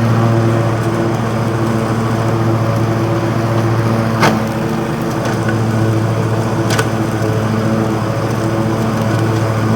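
Lawn mower engine running steadily at an even pitch while mowing grass, with two sharp clicks, about four and seven seconds in.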